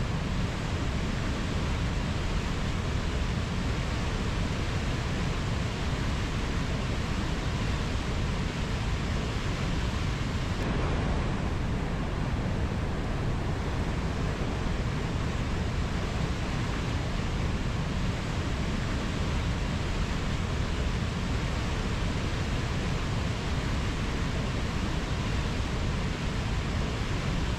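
Ocean surf: a steady rushing wash of waves with a deep low rumble, with no single wave break standing out.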